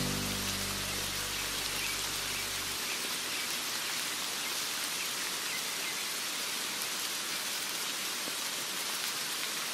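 Steady rain falling, an even patter of drops. In the first three seconds the last held low notes of a Javanese gending instrumental die away and stop, leaving only the rain.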